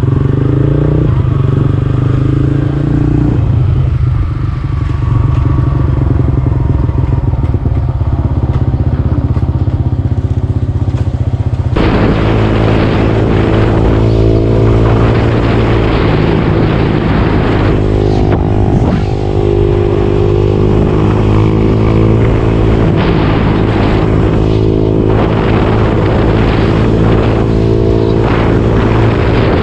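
Honda Wave 110cc motorcycle's single-cylinder four-stroke engine running under way, with heavy wind rumble on the microphone. About twelve seconds in the sound changes abruptly to a brighter engine note that rises and falls with the throttle.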